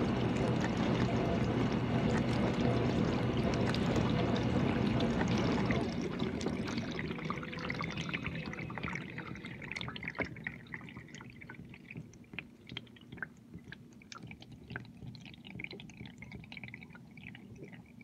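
GE dishwasher running mid-cycle, its pump and spraying water making a steady rush with a low hum that cuts off about six seconds in. Water then drips and trickles inside the tub in small scattered ticks that slowly fade.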